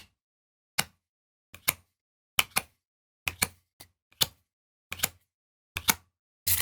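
Trading cards being flipped through one at a time, each card giving a sharp papery snap or slap, about a dozen in all at roughly one to two a second and often in quick pairs.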